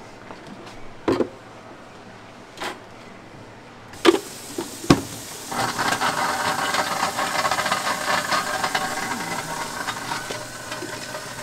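Gym background noise: a few separate knocks and clanks, then a louder, steady din setting in about five seconds in.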